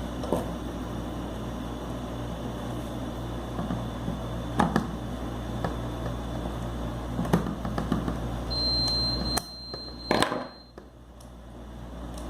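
A few sharp clicks and knocks of small metal parts being handled over a steady hum as the recoil starter spring of a paramotor's pull-start is refitted onto its shaft. A brief high steady tone sounds about two-thirds through.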